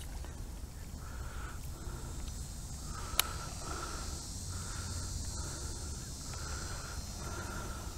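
Insects buzzing steadily while an animal calls in a regular series of short notes, about ten of them, roughly one every two-thirds of a second. One sharp click about three seconds in.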